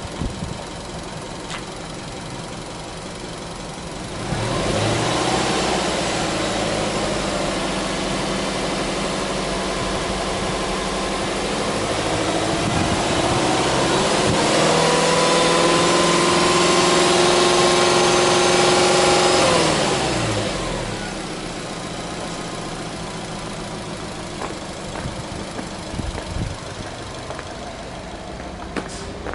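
2005 Subaru Legacy 2.0GT's turbocharged 2.0-litre flat-four engine idling, then free-revved with no load. The revs jump about four seconds in and are held raised, ease briefly around twelve seconds, climb higher again, then drop back to a steady idle about twenty seconds in.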